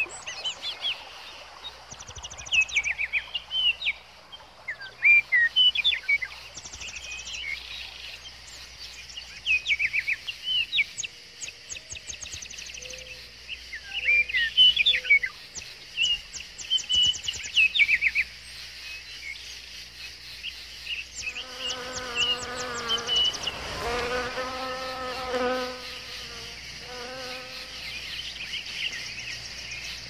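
Songbirds chirping and singing over a steady high insect hiss, with short rapid high trills repeating every few seconds. About two-thirds of the way in, a flying insect buzzes close by in wavering stretches and the birdsong thins out.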